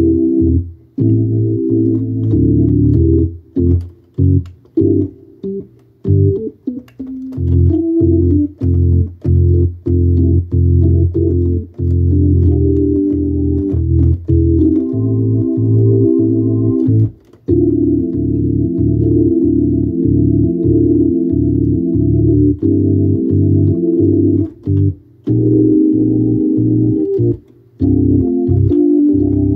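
Hammond organ being played: chords over a bass line, stabbed short and choppy for a few seconds early on, then held longer in places.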